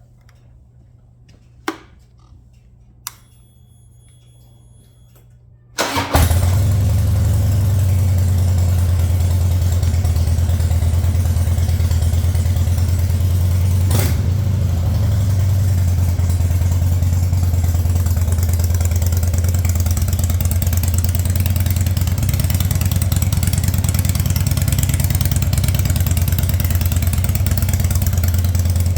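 2004 Harley-Davidson Wide Glide's fuel-injected V-twin, after two clicks, starts about six seconds in and catches almost at once, then idles steadily. It runs again now that the failed fuel pump relay behind the crank-but-no-start fault has been replaced.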